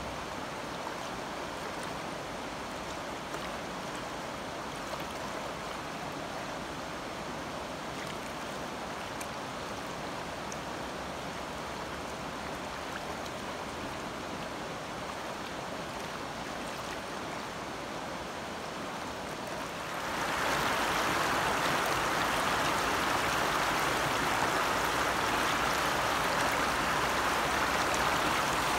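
Missouri River floodwater flowing, a steady rushing wash without any distinct tones. About twenty seconds in it gets suddenly louder and brighter.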